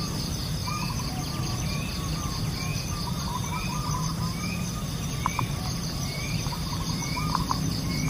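Insects trilling steadily, with a bird repeating a short rising chirp about once a second and a few other bird calls, over a low steady rumble.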